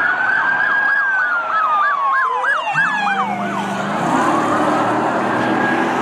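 Electronic police car sirens sounding, more than one at once: a slow rising and falling wail over a run of quick up-and-down yelps, with a low steady hum joining about three seconds in.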